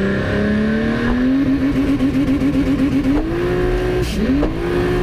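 Race car engine revving hard: its note first pulses rapidly and unevenly, then climbs, falls sharply about four seconds in, and climbs again.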